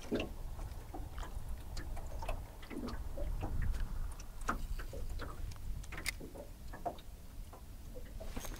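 Fishing reel being wound in after a cast: light, scattered clicks and ticks at an uneven pace over a low rumble.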